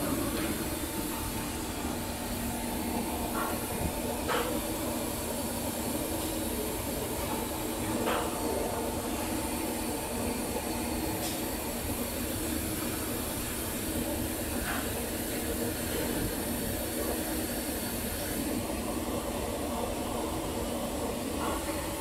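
Injection moulding machines running: a steady hum with hiss, and a few sharp clicks or knocks scattered through.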